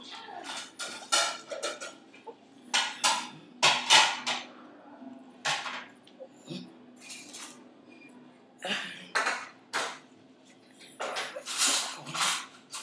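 Irregular clattering knocks and clinks in short clusters, over a low steady hum.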